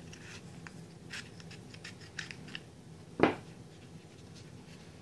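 Small scissors snipping the leathery shell of a ball python egg, a string of light clicks, then one louder knock about three seconds in.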